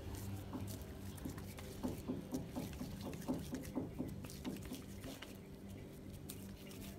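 Hands squeezing and patting soft, moist mashed-potato filling into a portion: a quick run of small wet pats and squishes in the middle, over a faint steady low hum.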